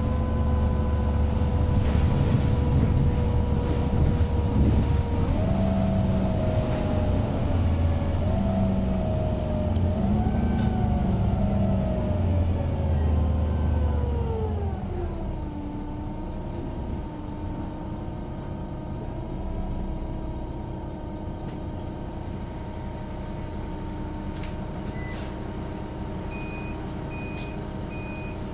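Van Hool AG300 articulated bus heard from inside: its DAF PR228S diesel engine and automatic gearbox slow down, the whine stepping up in pitch with each downshift and then falling, before the engine settles to a steady idle. A short repeated beep starts near the end.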